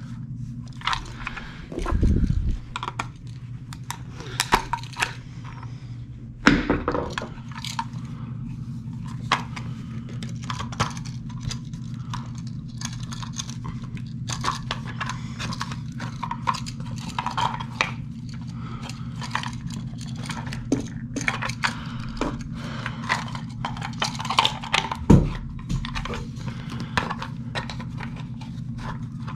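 Handling noise from a gray plastic electrical box and its yellow cable being worked up into a hole in thick ceiling drywall: scattered small clicks, rattles and scrapes, with a few dull thumps. A steady low hum runs underneath.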